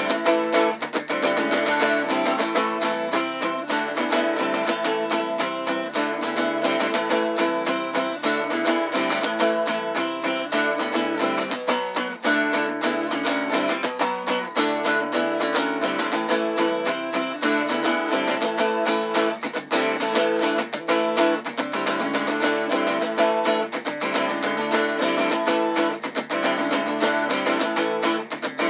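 Acoustic guitar with a capo, strummed in a steady, quick rhythm: the instrumental break of a song, with no singing.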